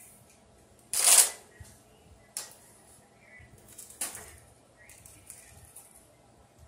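Parchment paper rustling and a small plastic cutter clicking as faces are cut into chocolate cookie dough: one short, loud rustle about a second in, then two sharp clicks.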